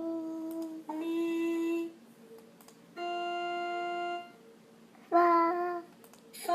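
Electronic organ-like notes, each held for about a second at nearly the same pitch, with short gaps between them; about five seconds in, a child's voice sings a short wavering note, the loudest sound here.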